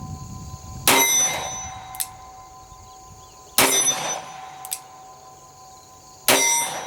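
Three shots from a Smith & Wesson Model 624 .44 Special revolver firing heavy 240-grain loads, about 2.7 seconds apart. A ringing tone lingers after each shot, and a fainter sharp crack follows each one about a second later.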